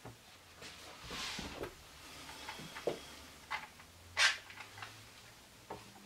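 Plywood parts being shifted and knocked against each other on a wooden workbench, with a sliding scrape about a second in. In the second half come several sharp clicks as a one-handed bar clamp is handled and set.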